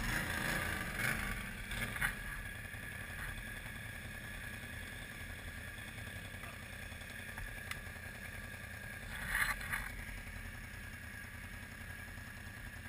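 ATV engine running steadily at idle, a low hum, with a few brief clatters near the start and a short louder burst about nine and a half seconds in.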